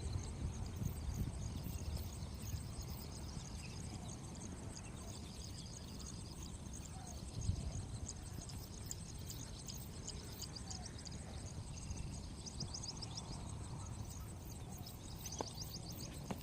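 Outdoor background noise: a steady low rumble with faint, high-pitched chirping from birds or insects repeating throughout, and a single dull knock about halfway through.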